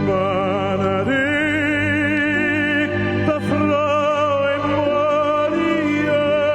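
Music: a solo operatic voice singing long held notes with wide vibrato over orchestral accompaniment.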